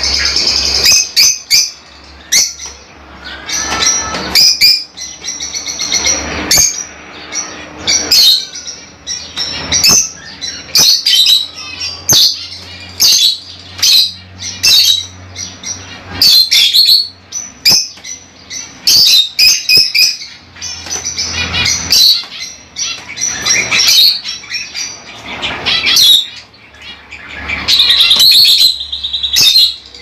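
Lovebirds chirping: a fast, almost unbroken run of sharp, high calls.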